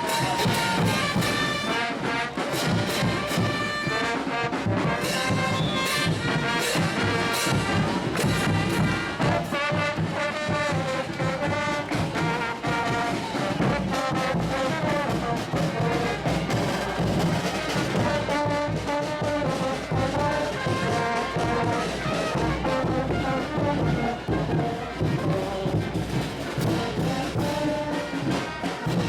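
Brass band playing traditional Bolivian parade music: trumpets and trombones carrying the tune over regular drum and cymbal beats.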